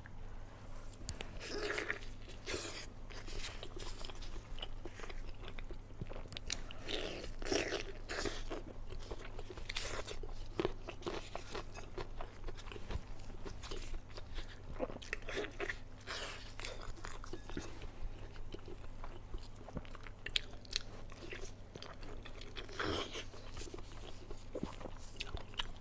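Close-miked eating: biting and chewing with irregular crunchy, wet mouth clicks, a few harder bites standing out, over a steady low hum.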